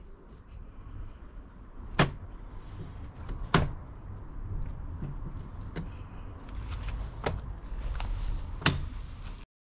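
Metal leg frames of a Hi-Gear folding camping table being swung out and knocking into place: a series of about six sharp clicks and clacks, the loudest about two and three and a half seconds in, over a low rumble.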